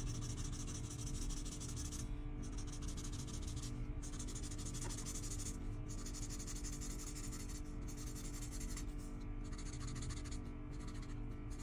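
Art marker scratching back and forth on paper in continuous colouring strokes, with short breaks every second or two as the pen lifts, over soft background music.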